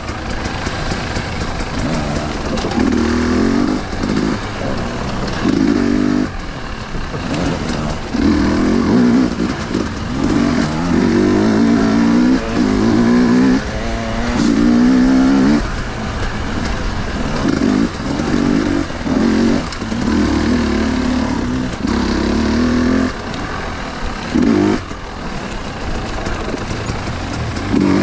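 Husqvarna TE 250i two-stroke enduro motorcycle engine riding off-road. The revs rise and fall over and over, with a burst of throttle every second or two.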